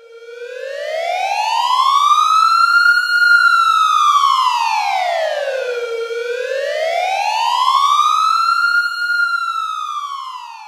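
Siren wailing, its pitch rising and falling slowly twice, sounding as the time-up alarm at the end of a countdown timer.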